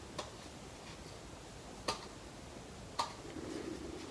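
Sharp plastic clicks as gloved hands handle an Elgato Facecam MK2 webcam and its clip mount: a faint click right at the start, then two louder ones about two and three seconds in. A soft rustle of knit gloves follows the last click.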